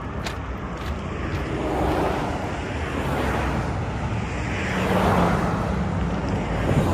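Street traffic: cars passing, two swells of engine and tyre noise over a steady low rumble.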